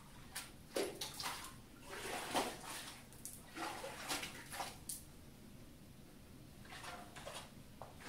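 Water sloshing and lapping in a long acrylic wave tank as a single wave runs back and forth along it, with faint, irregular splashes.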